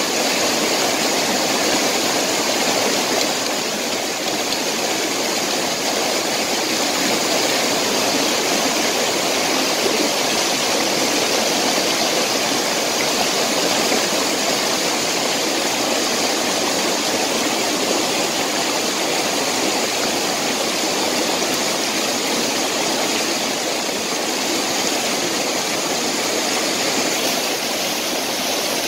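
Stream water rushing over rocks in a small rapid, a steady, loud rush.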